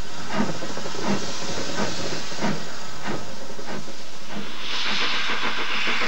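Steam locomotive on the move, with a regular beat about every two-thirds of a second. About three-quarters of the way in, a loud hiss of steam sets in and covers the beat.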